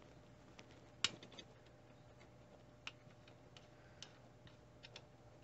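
Faint, sparse small clicks and taps as hands handle a graphics card and its parts, the sharpest about a second in, over a low steady hum.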